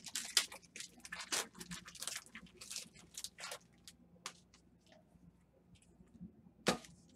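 Foil trading-card pack wrapper crinkling and tearing as it is handled and opened, dense for the first three and a half seconds or so, then a few light clicks and one sharp tap near the end.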